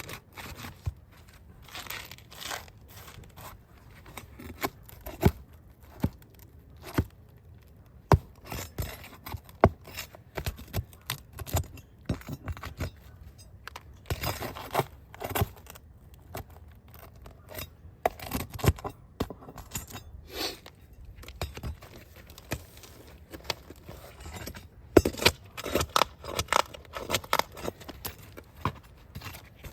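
Asphalt shingles being pried and pulled loose by hand: irregular scraping and tearing with many sharp clicks and knocks, and a metallic clink now and then. One of the loudest knocks comes near the end.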